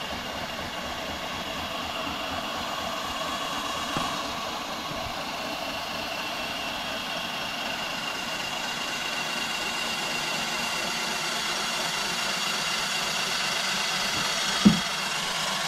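A steady mechanical whirring hum with a faint high tone running through it, and one short knock near the end.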